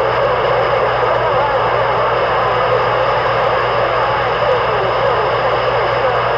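CB radio receiver hissing with static and garbled, unreadable transmissions, over a steady low hum; the band is noisy.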